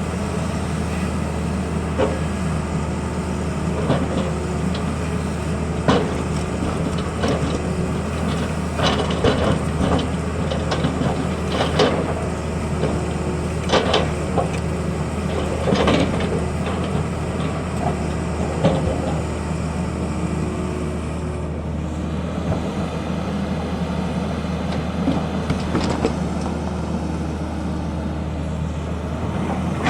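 Tata Hitachi excavator's diesel engine running steadily, with scattered knocks and clanks over it, most frequent in the first half.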